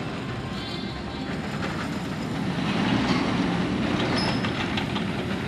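Roller coaster train running along its track: a steady rumble of wheels with light clatter and brief high wheel squeals about half a second in and again around four seconds in.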